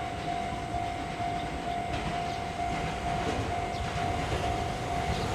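JR Central 313 series electric train approaching with a low rumble. Over it, a warning bell tone repeats steadily about twice a second.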